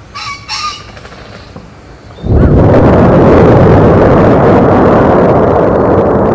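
A crow caws twice, then about two seconds in the blast of an explosive volcanic eruption arrives suddenly and goes on as a loud, steady rumble of the erupting ash column.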